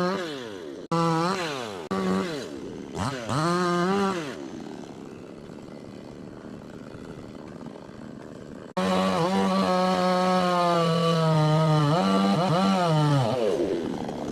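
Chainsaw engine revved in three or four quick bursts, dropping back to a quieter idle, then held at high speed for about four seconds before falling away near the end.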